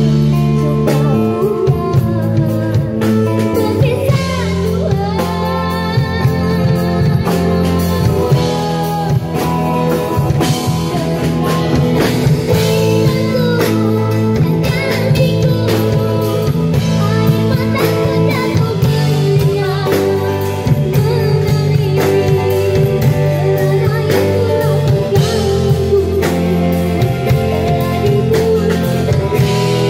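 A young girl's voice singing a Malay song through a microphone, backed live by an acoustic guitar and a drum kit.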